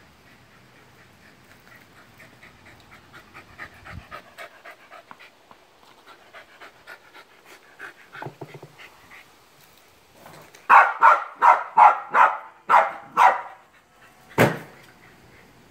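A dog panting quickly, then barking about eight times in a row, loud and evenly spaced. Near the end comes one sharp crack as the automatic ball launcher fires the ball.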